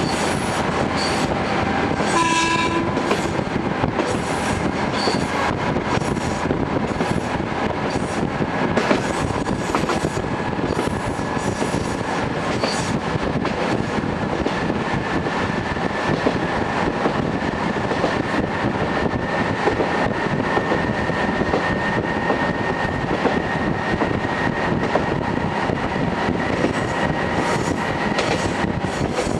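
TH3501 diesel railcar running along the line, heard from inside the car: a steady running noise of engine and wheels, with a short horn blast about two seconds in. A faint whine slowly rises in pitch through the second half.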